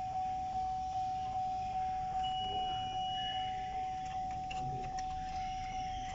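A vehicle's warning chime dinging steadily and evenly, about two and a half dings a second, each one fading before the next.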